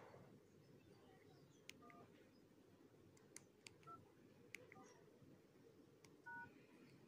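Keypad tones and key clicks from a small feature phone as the balance-check code *124# is typed in. They come as a few faint, short two-tone beeps, spaced a second or two apart, mixed with light clicks. The last beep, about six seconds in, is the loudest and comes as the hash key is pressed.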